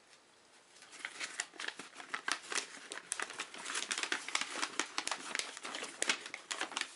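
Paper fold-out rule sheet being unfolded and handled, a dense irregular crinkling and rustling that starts about a second in.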